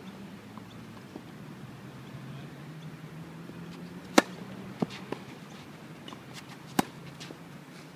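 Tennis racquet strikes on the ball: a sharp pop of a serve about four seconds in, two fainter knocks soon after, and another sharp pop of a forehand near the end. A low steady hum runs underneath.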